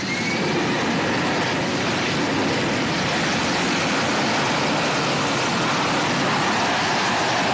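AV-8B Harrier II's Rolls-Royce Pegasus turbofan at high thrust for a vertical takeoff and hover: a loud, steady rush of jet noise, with a thin whine rising at the start.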